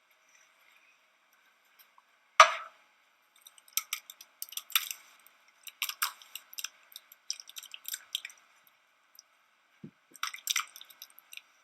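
Beaten egg, potato and onion mixture poured into a hot oiled frying pan: a sharp knock, then irregular crackling and popping of the hot oil as the wet mixture goes in.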